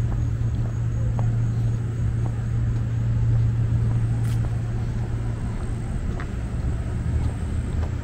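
A steady low mechanical hum, like an engine or ventilation unit running, with a few faint clicks.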